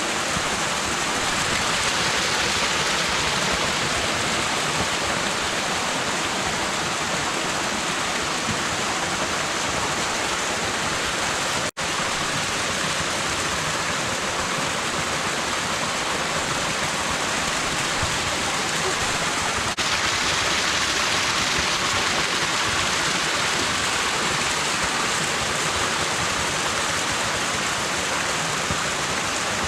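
Steady rush of a waterfall, water crashing down without pause, briefly cut off for an instant about twelve seconds in.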